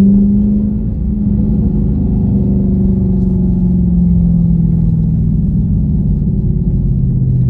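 2017 Dodge Charger Daytona's HEMI V8 with Dynomax Race Bullet resonators, heard from inside the cabin: the engine note swells briefly at the start, then drops slowly and steadily in pitch as the revs fall off.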